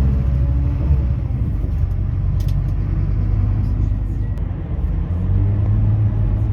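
Coach bus engine and road noise: a steady low rumble.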